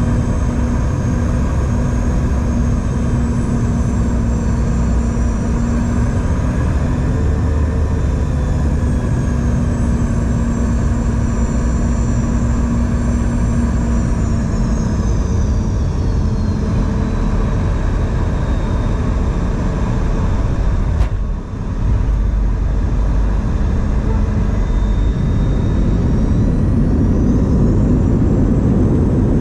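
Cabin noise of a Boeing 717-200 with its rear-mounted Rolls-Royce BR715 turbofans: a steady rush and hum, with high engine whine tones gliding up and down as the thrust changes. The low rumble grows louder near the end.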